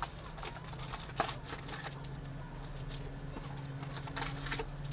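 Crinkling and rustling of foil trading-card packs and box cardboard as a box of packs is opened and emptied, in many short irregular rustles over a steady low hum.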